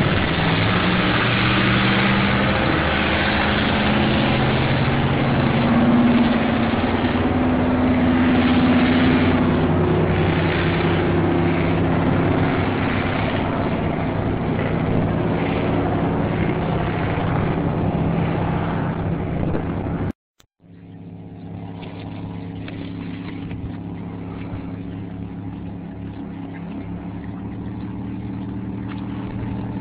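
Speedboat's twin Mercruiser 350 V8 engines running at speed with a steady rushing noise over them, the engine pitch rising about six to nine seconds in. About two-thirds through the sound cuts out briefly and a steadier boat engine drone follows.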